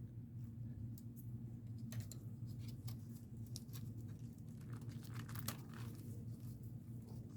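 Scattered light clicks, taps and crinkles from handling the all-in-one computer's plastic and metal internal parts, over a steady low hum.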